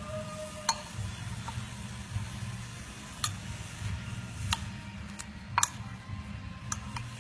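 Metal spoon and wooden chopsticks clinking against a ceramic bowl while tossing shredded sweet potato with batter flour: several sharp clinks at uneven intervals, over a steady low hum.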